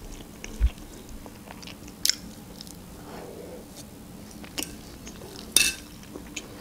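Close-up chewing and mouth sounds of a person eating, with a few sharp clicks of a plastic fork against a plate; the loudest click comes near the end as the fork is set down on the plate.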